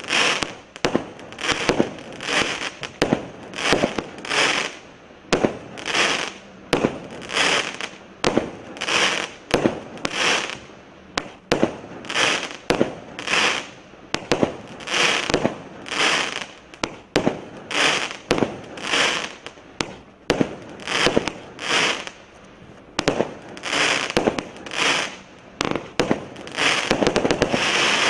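Consumer fireworks cake firing shot after shot, about one a second. Each shot is a sharp report followed by a short burst of crackling stars. The crackle comes denser and louder near the end.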